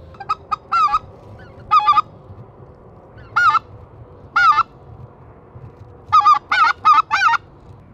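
Geese honking: short, loud, high-pitched honks, some single and some in quick runs, with a run of four near the end.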